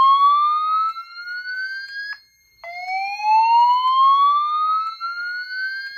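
EST2 whoop tone from a voice-evacuation system, played through EST Genesis speaker strobes: one slow upward sweep ends about two seconds in, and a second whoop starts about half a second later and climbs steadily in pitch. It is the alert tone sounded between repeats of the evacuation message.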